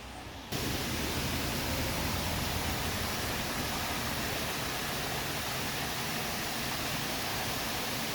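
Waterfall rushing in a steady, loud wash of water noise that starts abruptly about half a second in.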